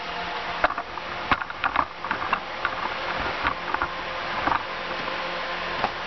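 Light clicks, taps and rustles of a cardboard box and packaged goods being moved about, scattered through the first few seconds over a steady background hiss.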